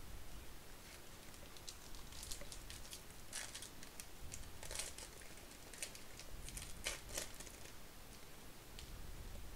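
Plastic wrapper of a 2023 Topps Series 2 baseball card pack crinkling and tearing as it is pulled open by hand, in a run of short crackly rustles from about a second and a half in to about seven and a half seconds in.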